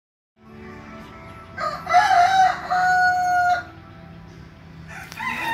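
A rooster crowing once, a call of about two seconds that wavers and then ends on a long held note, over a faint steady low hum.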